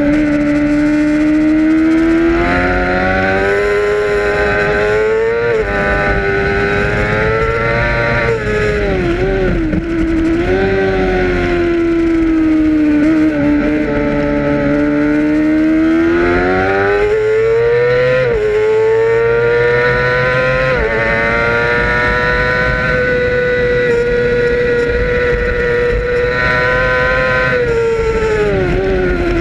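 Racing motorcycle engine at high revs, heard from an onboard camera on the bike. The pitch climbs through the gears with sharp drops at the shifts, falls back with quick blips on the way into corners, and has a rush of wind underneath.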